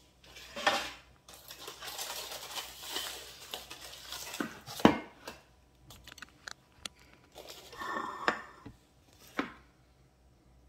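Kitchen-counter handling sounds: a few seconds of rustling and scraping, then one sharp knock about five seconds in, followed by scattered light clicks, another brief rustle and a second knock, as hands work around a glass bowl of dough and a metal baking sheet and flour the granite counter.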